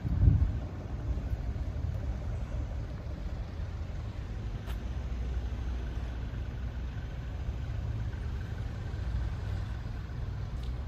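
A steady low engine rumble, like a diesel idling somewhere in the yard, with a brief low thump right at the start.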